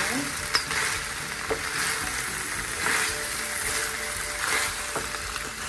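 Chicken strips, garlic and sliced mushrooms sizzling in hot olive oil in a frying pan. The sizzle swells as the pan is stirred, with a few sharp clicks of the utensil against the pan.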